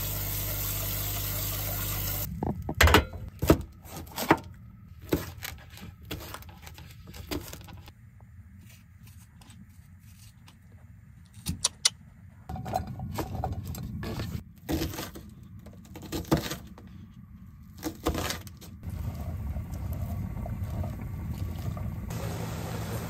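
A run of kitchen prep sounds: tap water runs into a saucepan of rice for about two seconds, then scattered knocks and clicks of vegetables being handled and cut on a plate and counter. Near the end, chopped onions and peppers sizzle in a pot as a wooden spoon stirs them.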